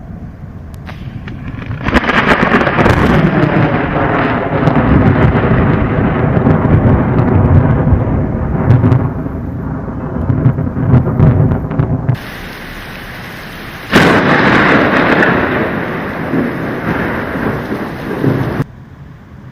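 Thunder during a rainstorm: a long rolling rumble starts about two seconds in and cuts off suddenly, then a sharp clap of thunder breaks in and fades out over a few seconds under steady rain.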